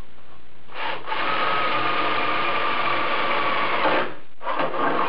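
Cordless drill boring through metal in two runs: a steady run of about three seconds starting about a second in, then a shorter run near the end.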